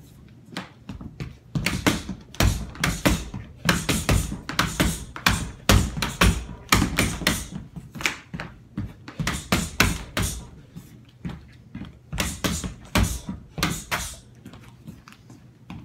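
Person shadowboxing and kickboxing: quick clusters of footwork thuds and taps on the floor mixed with sharp hissing bursts from the strikes, several a second, in combinations separated by short pauses.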